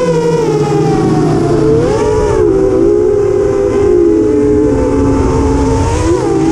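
Small multirotor drone's motors and propellers whining up close, several close pitches that sag and rise again as the throttle changes.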